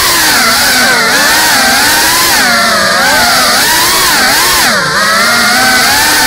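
GEPRC CineLog35 FPV drone's brushless motors and propellers whining in flight, the pitch rising and falling constantly with the throttle. The whine drops briefly and climbs back about five seconds in.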